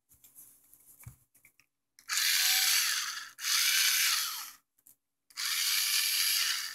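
Duratest 3.6-volt cordless screwdriver's small electric motor and gearbox running in three short bursts of a second or so each, starting about two seconds in, switched on and off with its rocker switch. It runs on a newly wired-in pack of replacement NiCd AA cells, a sign that the battery repair works.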